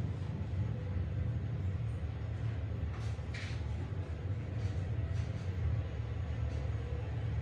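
A 1973 Haughton DC geared traction elevator car travelling in its hoistway, giving a steady low rumble with a faint steady hum above it. A brief hiss comes about three seconds in, with fainter ones later.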